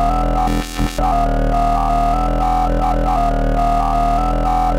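Synthesized dubstep bass from a phone app's bass synthesizer: a sustained low note whose tone keeps shifting as its filter type is changed, with a short break a little before a second in.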